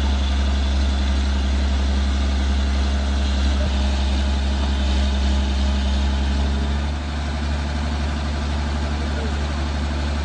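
Tata Hitachi EX110 excavator's diesel engine running steadily with a deep, even hum; the level dips slightly about seven seconds in.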